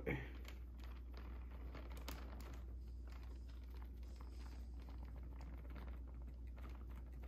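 Faint crinkling and light ticking of a plastic zip bag being handled and shaken as powdery flock fibres are poured from it into a cardboard flock tube, over a steady low hum.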